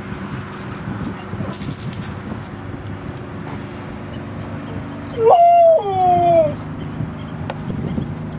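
A dog gives one short whining call about five seconds in. It comes in two parts: the first rises and holds, the second slides down in pitch.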